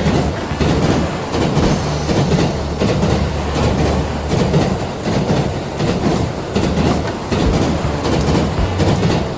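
Train running on rails, a continuous rolling sound with a steady low rumble.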